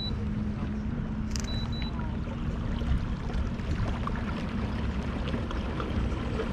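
Minn Kota bow-mounted trolling motor running with a steady electric hum over a low rumble of wind and water. About a second and a half in comes a short run of high electronic beeps.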